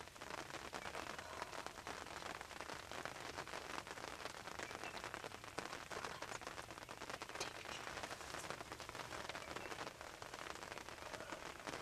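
Faint, steady crackling patter of many tiny ticks, with no clear pattern or single loud event.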